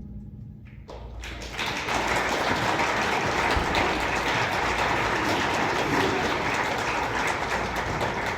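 The last of a brass band's sound fades out, then a crowd applauds, the clapping swelling about a second in and holding steady.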